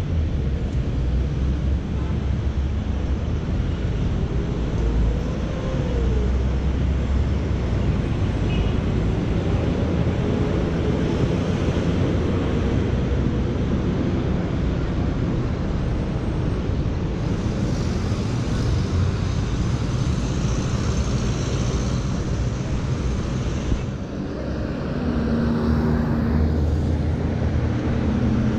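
City road traffic: cars and minibuses running and driving past at an intersection, a steady low rumble. A nearby engine hum stands out near the end.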